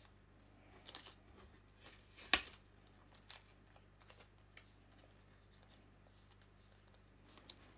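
Paper flower pieces and a piercing tool being handled on a craft mat: faint paper rustles and light clicks, with one sharper tap a little over two seconds in.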